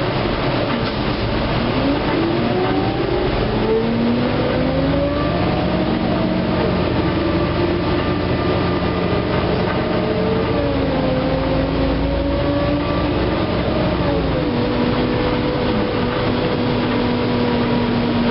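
NABI LFW low-floor transit bus heard from inside the cabin, its engine and drivetrain whine rising steadily in pitch as it pulls away. The pitch then drops in a step about halfway through and again a few seconds later, as the transmission shifts up, over a steady road rumble.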